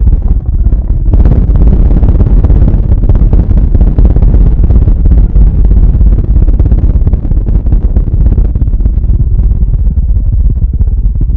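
Loud, steady rumble of a GSLV rocket's engines climbing away after lift-off, heard from a distance: a deep roar with a crackling edge.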